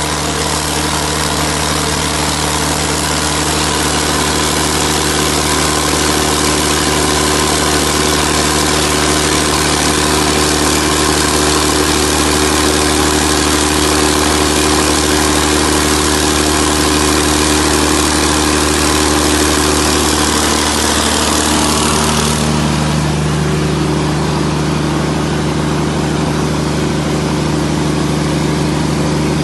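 Large Perkins diesel engine of a 600 kVA generator set running steadily at constant speed, a deep even hum with a bright hiss over it. About 22 seconds in the hiss drops away suddenly and the hum shifts slightly in pitch, then the engine runs on steady.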